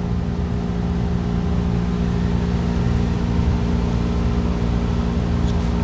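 A steady low mechanical hum with a few held low tones over a low rumble, unchanging throughout.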